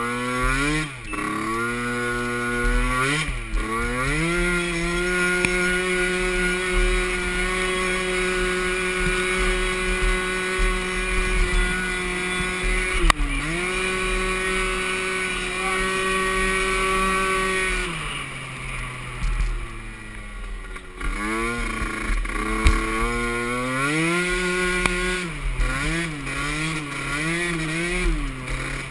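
Small pee wee class youth ATV engine, one machine, climbing and holding steady high revs for long stretches. The revs dip briefly, drop low for a few seconds past the middle, then build again and rise and fall in quick pulses near the end.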